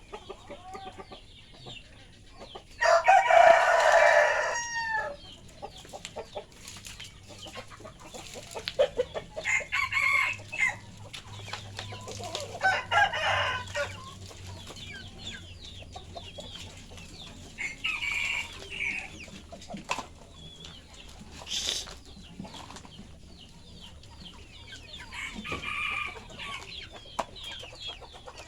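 Village roosters crowing, several times over. The loudest is a long crow about three seconds in, with shorter crows and clucking from the flock in between.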